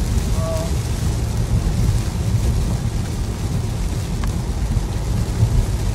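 Heavy rain on a car's windshield and roof, with tyres on the wet freeway and a steady low road rumble, heard from inside the cabin.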